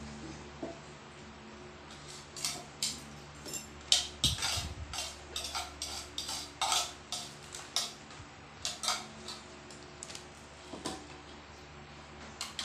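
Dishes and a plastic dipper clinking and knocking against a stainless-steel basin as dishes are washed by hand, a quick run of clatters in the middle with single knocks before and after.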